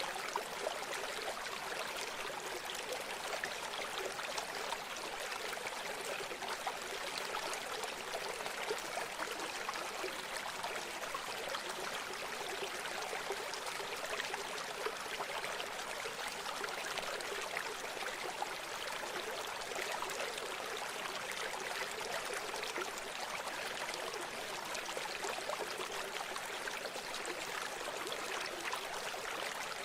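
River water flowing, a steady rush with fine splashing that does not change.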